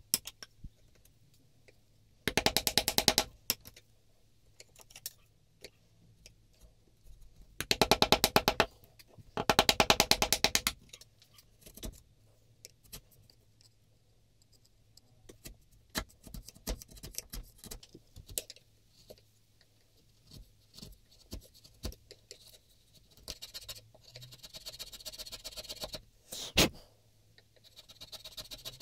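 Steel chisel paring and scraping inside the throat of a boxwood plane body. It comes in three loud, second-long bursts of rapid chattering scrapes, with quieter scattered clicks and scrapes between them.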